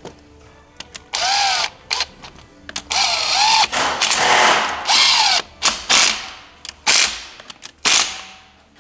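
Snap-on cordless ratchet running in the 8 mm bolts of an ATV's oil filter cover: several bursts of motor whine that rise and dip in pitch, then short blips near the end as the bolts are snugged down.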